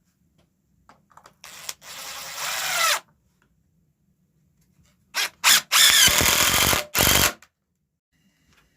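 Power drill running in two spells of about one and a half and two seconds, each after a short blip or two of the trigger, working into the wood of the bird table's frame.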